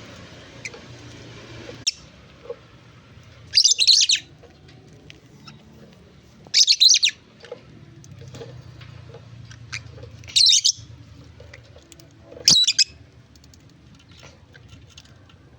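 Pet birds chirping in four short, loud, high-pitched bursts about three seconds apart.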